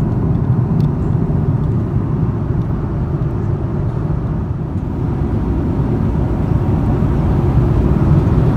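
Steady cabin noise inside an Airbus A330-300 in flight: an even, deep rush of engine and airflow noise with no distinct events.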